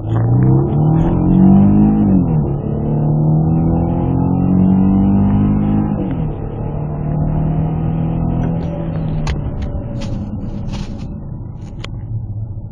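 Peugeot 407 engine heard from inside the cabin under hard acceleration: the revs climb, then drop sharply at two upshifts, about two and six seconds in, with the gearbox in manual mode. From about eight seconds the engine note holds and then fades as the car slows, with a few sharp clicks near the end.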